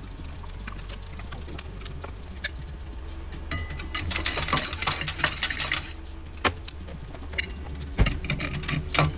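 Metal transmission parts clinking and rattling as a part is turned and seated by hand inside a Jatco JF011E CVT case. There is a dense run of clinks a few seconds in, then a single sharp knock near the end, over a steady low hum.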